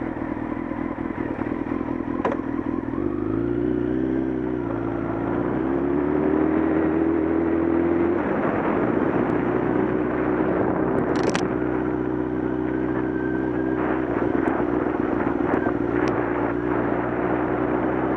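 Motorcycle engine running while riding on a gravel road, its pitch climbing twice in the first several seconds as it picks up speed, then holding steady. A few sharp clicks sound in the second half.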